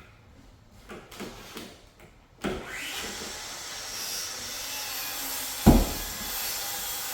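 A few light clicks and taps of parts being handled, then a steady rushing noise comes on suddenly about two and a half seconds in and holds, with one loud knock a little past halfway.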